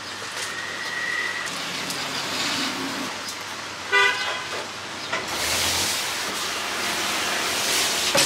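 A vehicle horn toots briefly about four seconds in, over street traffic noise that grows louder from about five seconds in.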